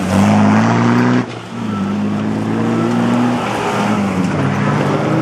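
Off-road 4x4's engine revving hard under load: its pitch climbs, drops off sharply about a second in, then climbs again twice as the throttle is worked.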